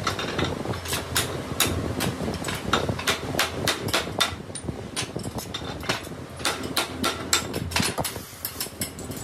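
Hammer blows on a metal piston-casting mould and its pins: a quick, irregular run of sharp metallic knocks, about two or three a second, as the mould is knocked apart to release a freshly cast piston. A steady low rumble runs underneath.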